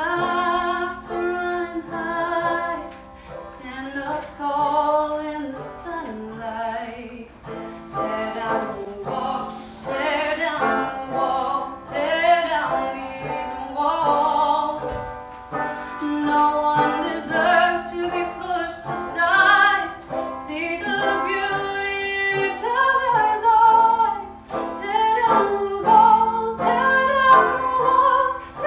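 A woman singing a melody while accompanying herself on banjo.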